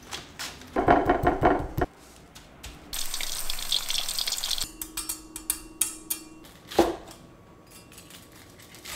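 A run of kitchen sounds: a cabbage wedge rasping over a mandoline blade for about a second; then oil sizzling hard around a breaded pork cutlet frying; then crisp crackles of a cleaver cutting through the fried panko crust, with a sharp knock of the blade on the board near the end.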